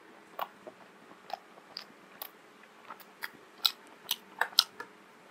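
Chewing a mouthful of steamed vegetable momo: wet mouth clicks and smacks in an irregular run, coming faster and louder in the second half.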